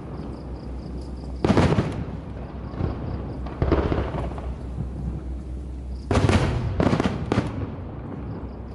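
Fireworks shells bursting overhead. A loud bang comes about a second and a half in, lighter bangs near three and four seconds, and then three bangs in quick succession a little after six seconds.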